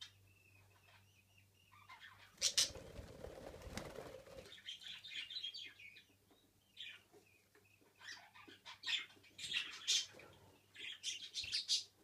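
Budgerigars chirping and chattering in short, high bursts. A rustling flurry, like wings flapping, comes about two to four seconds in.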